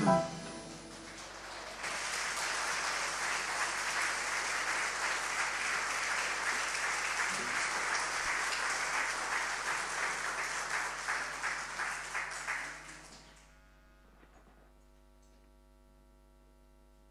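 Audience applause, beginning about two seconds in and fading out after about eleven seconds. It is followed by near silence with a faint steady hum.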